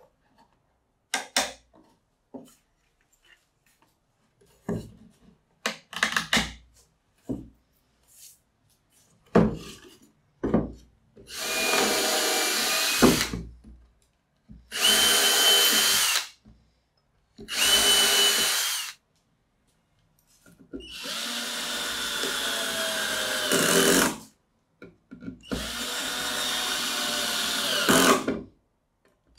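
Light scattered knocks and taps of wood handling, then a cordless drill/driver run in five bursts of two to three seconds, boring into and driving screws into a plywood disc; the last two runs change pitch and stop as the screws seat.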